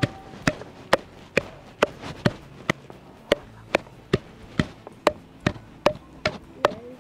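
Steady rhythmic chopping: a blade striking a board with sharp strokes a little over twice a second.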